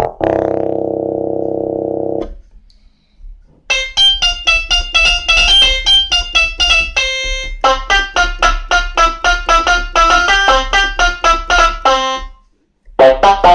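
Kawai FS660 portable electronic keyboard: a held chord in one preset tone stops about two seconds in. After a short pause, a bright preset tone whose notes fade quickly plays a fast melody of single notes, with a brief break near the end.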